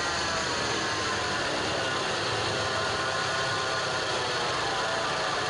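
Peugeot 406 petrol engine idling, with a faint steady whine from the accessory belt drive. The noise comes from a worn bearing in the air-conditioning compressor pulley, which spins free and noisy while the A/C is switched off.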